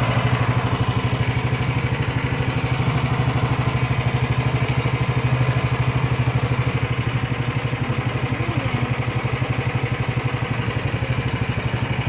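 Small engine of a tiller-steered Thai long-tail style tour boat running steadily under way, with a rapid, even chugging that holds the same pace throughout.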